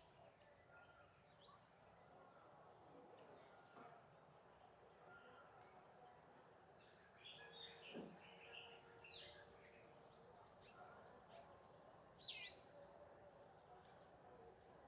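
Faint, steady, high-pitched drone of insects, with short bird chirps scattered over it, several around the middle and one more a little later.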